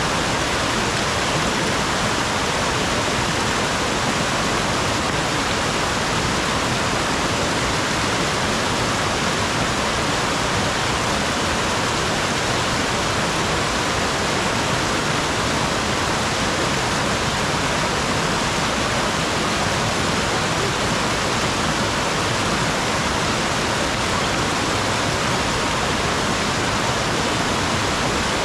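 Steady, unchanging rushing noise with no breaks or separate events, strongest in the upper range.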